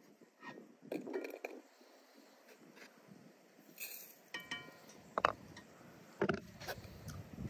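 Glass teapot being handled on a wooden table as berries and loose tea are dropped into it: a few sharp knocks and clinks, the loudest a little past the middle, and one brief glassy ring.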